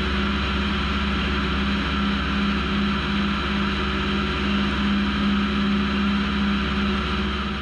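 SYIL L2 CNC lathe turning an aluminium part: a steady spindle hum under the hiss of the tool cutting, constant in pitch and level.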